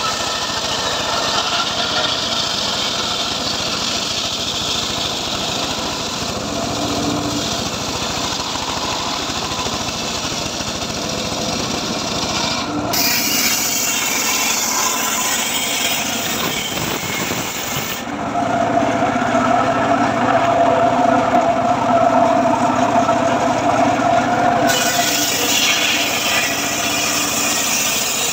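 Engine-driven homemade circular sawmill (gergaji srekel) running, its large blade ripping a very old teak log into planks with a continuous loud sawing noise. In the later part a steady whine rides over the noise.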